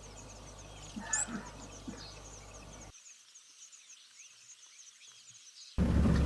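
Morning bird chorus: a steady run of quick, high chirps, with a louder bird call about a second in. Near the end it cuts abruptly to a loud, steady rushing noise.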